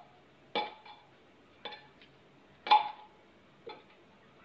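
A serving spoon knocking and clinking against a metal pressure cooker and steel bowl while cooked rice is scooped out: about five short knocks, each with a brief metallic ring, the loudest nearly three seconds in.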